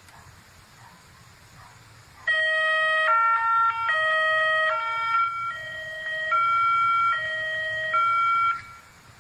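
Homemade electronic siren sounding one of its signals: loud steady electronic tones that switch abruptly between pitches about every 0.8 seconds, in a hi-lo style pattern. It starts about two seconds in and cuts off sharply near the end.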